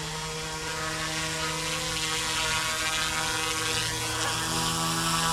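Electric RC helicopter's motor and rotor giving a steady whine as it comes in to land on a low battery. A second, lower tone joins about four seconds in.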